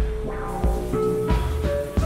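Background music with a steady beat: low drum thumps and held melodic notes.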